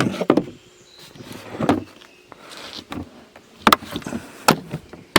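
Plastic chainsaw carrying case being handled and moved aside: a few sharp knocks and clunks, the loudest two near the end, with rustling between them.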